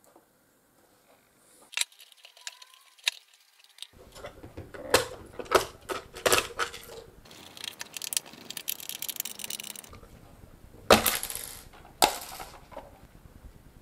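Hard plastic clicks, taps and knocks from a DJI Phantom 4 remote controller's case as it is handled and opened. A few seconds of dry scraping come in the middle, and two louder knocks near the end.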